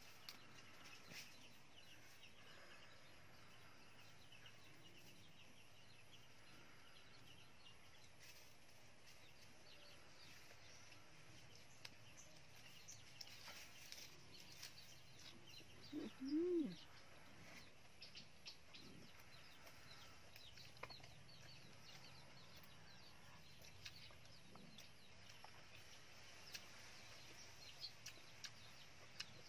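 Near silence: faint outdoor ambience with scattered small clicks and faint bird calls, and one brief pitched call, rising then falling, about sixteen seconds in.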